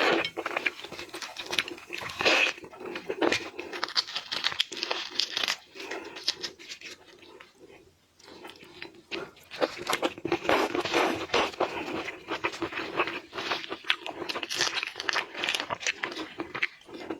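Close, irregular crunching and crackling of shrimp shells being broken and eaten, with a brief lull about eight seconds in.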